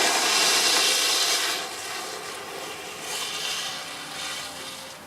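An engine running steadily under a loud rushing noise that is strongest for the first second and a half, then eases and swells again a couple of times.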